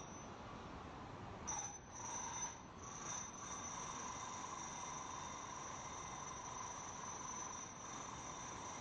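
Insects trilling steadily in thin, high, unbroken tones over a low hiss of surf, with brief louder swells about two seconds in.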